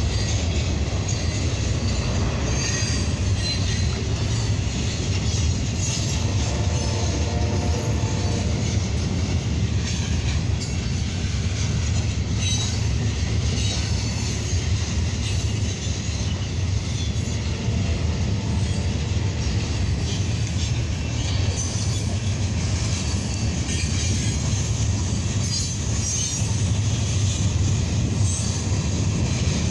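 Freight train cars rolling through a grade crossing: a steady rumble and clatter of steel wheels on the rails as tank cars and boxcars pass.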